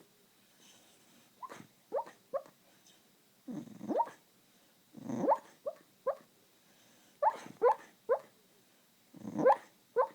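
A beagle barking in its sleep while dreaming: about a dozen short yips and woofs in clusters of two or three, roughly every two seconds, a few of them longer and deeper.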